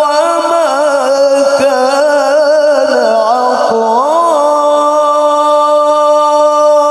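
A male qari's voice reciting the Quran in the melodic tilawah style, drawn out in one long melismatic passage without breaks: the voice winds through quick ornaments, rises about four seconds in, then holds a long steady note.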